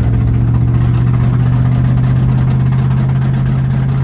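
Ford Mustang SN95's 4.6-litre two-valve V8 running under way, its note climbing slightly. The engine, which the crew says sounds like a box of rocks, is taken by them for an exhaust leak, and it is sold as having a rod knock.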